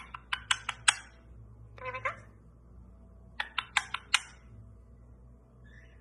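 Blue Indian ringneck parakeet making quick runs of sharp clicks, five or six in under a second, once at the start and again about three and a half seconds in, with a short pitched call about two seconds in.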